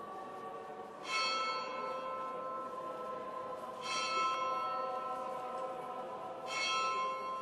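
A deep bell tolling three times, a strike every two and a half to three seconds, each ringing on over a held tone.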